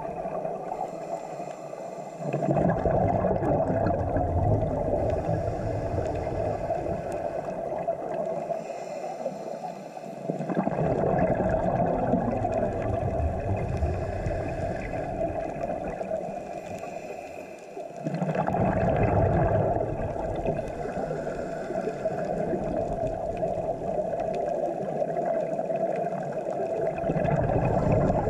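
Scuba diver breathing through a regulator, heard underwater. Each exhalation lets out a loud rush of bubbles that fades over several seconds, followed by a short quieter gap while the diver breathes in, repeating about every eight seconds.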